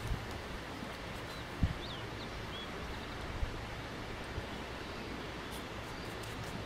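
Steady, even outdoor background hiss. A soft low bump comes about a second and a half in, and a few faint, short high chirps follow around two seconds in.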